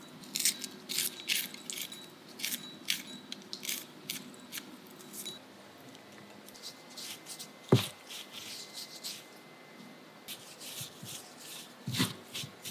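A spoon scraping the seeds out of split green chili peppers into a ceramic bowl: a quick run of small scrapes and clicks for the first few seconds. A single sharp knock follows about eight seconds in, and another near the end.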